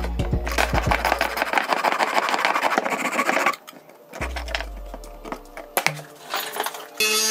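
Jeweller's saw with a fine blade cutting through a small piece of yellow metal in fast, short back-and-forth strokes. The sawing stops abruptly about three and a half seconds in, and only fainter, scattered sounds follow.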